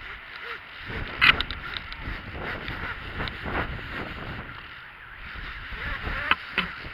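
Wind on a head-mounted camera's microphone during an abseil, with scuffs and knocks of trainers and rope gear against a concrete wall. The sharpest knock comes about a second in, and two more come near the end.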